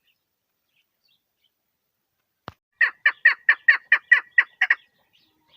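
Chukar partridge calling a rapid run of about ten sharp notes, some five a second, for about two seconds. A single click comes just before the calls.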